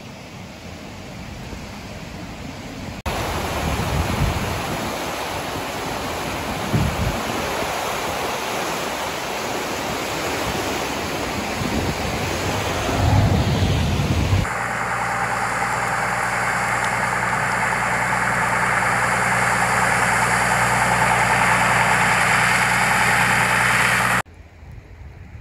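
Fast, swollen floodwater of the Nooksack River rushing, a loud steady noise with a few low thumps of wind on the microphone. About fifteen seconds in it gives way to a vehicle engine idling steadily under rain, which cuts off near the end to quieter water.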